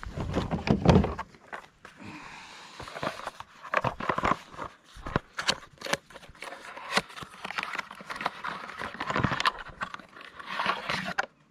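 Gear being handled close by: a heavy low thump in the first second, then irregular knocks, clicks, scrapes and rustling.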